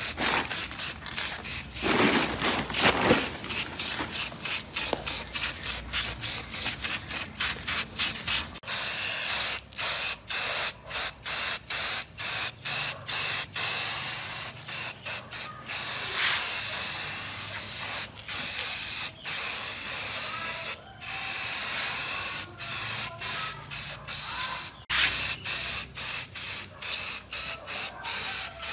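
Aerosol spray paint can hissing as it sprays metal machine parts: rapid short bursts at first, longer steady spraying from about a third of the way in, and short bursts again near the end.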